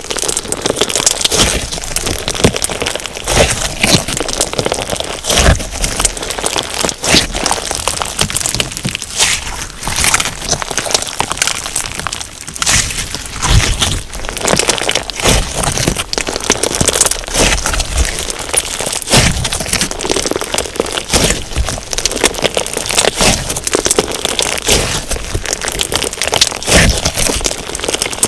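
Crunchy slime packed with sugar beads being worked by hand, giving a dense, continuous crackling and popping.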